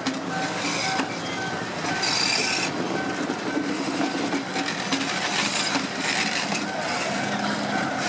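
Freight train of tank cars rolling steadily through a street level crossing, wheels running on the rails, with the crossing's warning signal beeping in a regular on-off pattern. Near the end the diesel locomotive passes close by, adding a low steady engine drone.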